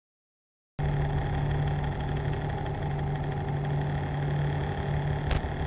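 A steady low mechanical hum, like a motor or engine running at idle, cuts in abruptly after about a second of silence and holds unchanged, with a short click near the end.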